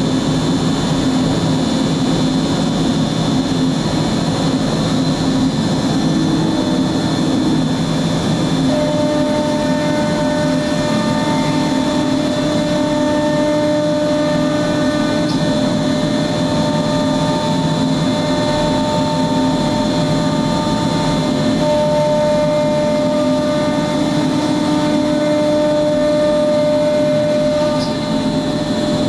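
MultiCam 5000 Series CNC router running: a steady, loud machine noise with high whines. From about nine seconds in, further motor whines come and go every second or two as the gantry moves the spindle head.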